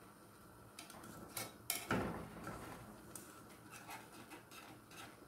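Wire whisk stirring thick béchamel sauce in a metal saucepan, ticking and scraping against the pot in irregular strokes, with a louder knock about two seconds in.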